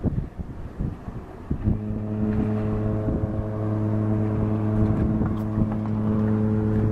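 Wind buffeting the microphone, then about a second and a half in, the Mein Schiff 5 cruise ship's horn starts a long, deep, steady blast.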